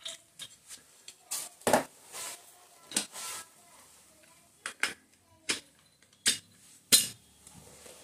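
Metal clutch parts and hand tools clinking and clattering as they are handled on a Hero HF Deluxe motorcycle engine's clutch assembly. There are about five sharp clinks with quieter handling noise between them, the loudest near the start and near the end.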